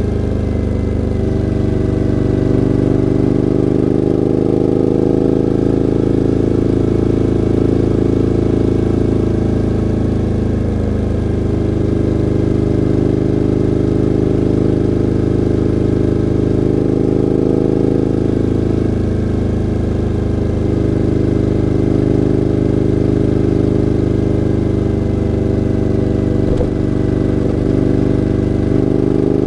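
2014 Suzuki V-Strom 1000 ABS's V-twin engine running steadily through an aftermarket LCI twin-end carbon exhaust, its pitch shifting slightly a few times.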